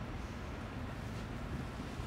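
Room tone: a steady low background rumble with no distinct sounds.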